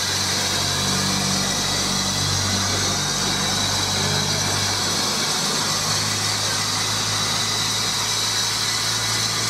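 Steady steam hiss from a Beyer Peacock 0-6-0T narrow-gauge steam tank locomotive as it moves slowly away, with no chuffing, over a low steady hum.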